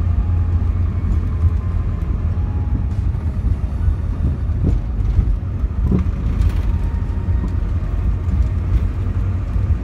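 Road and engine noise heard inside a moving vehicle's cabin: a steady low rumble of tyres and engine while driving at an even speed.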